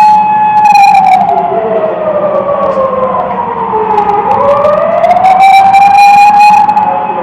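Emergency vehicle siren wailing loudly: a held tone that slides slowly down over about three seconds, then rises back up and holds again.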